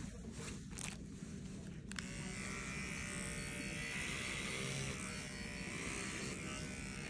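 Small cordless animal hair clipper switching on about two seconds in and buzzing steadily as it shaves fur from a dog's foreleg.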